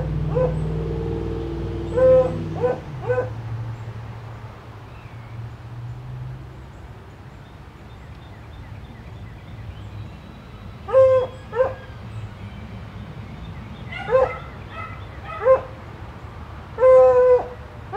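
A dog barking off and on: three quick barks about two seconds in, then barks singly or in pairs, the last one longer and drawn out near the end. A low steady hum fades out in the first few seconds.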